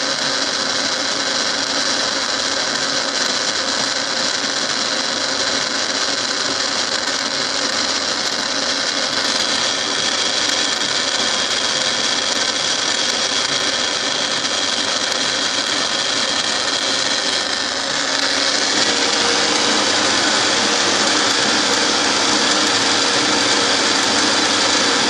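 A milling machine running, its end mill cutting a helical groove into a metal worm blank that is turned and fed by hand-cranking. The sound is a steady machine hum with a whine from the cut, and it grows a little louder and brighter about 18 seconds in.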